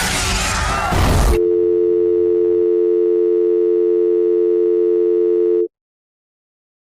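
A loud crashing din stops abruptly about a second and a half in, and a steady telephone dial tone takes over for about four seconds before cutting off: the phone call has gone dead.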